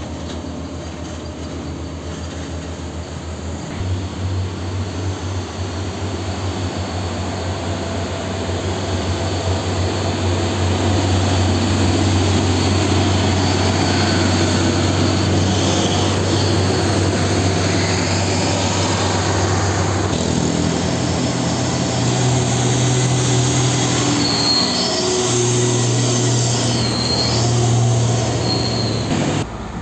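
Heavy diesel trucks passing close by at low speed, engines running with a low drone that grows louder about a third of the way in. A few short high squeals come near the end.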